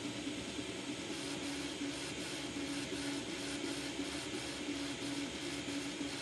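Anycubic Mega 3D printer printing: a steady fan hiss, with the stepper motors' whine breaking off and resuming about three times a second as the print head moves.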